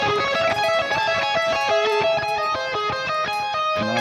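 Electric guitar playing a minor arpeggio: a quick run of single notes stepping up and down several times a second.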